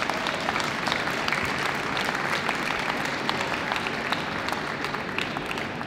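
Audience applauding, a dense patter of many hands clapping that slowly dies down toward the end.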